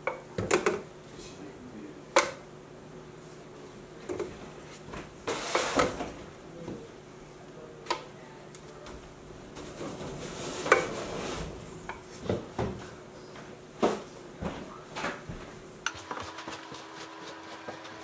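Flexible spatula scraping and knocking against a stainless steel mixing bowl while scooping out soft butter cookie dough: irregular taps with a couple of longer scrapes.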